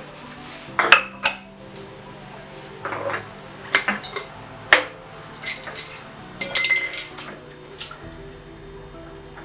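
Pots, pans and utensils clattering and clinking as dishes are handled while washing up, a string of separate knocks and clinks at uneven intervals.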